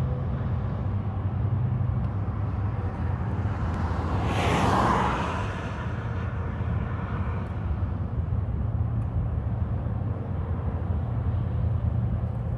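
A car passing by on the road: its tyre and engine noise swells to a peak about four to five seconds in, then fades as it drives away, over a steady low rumble.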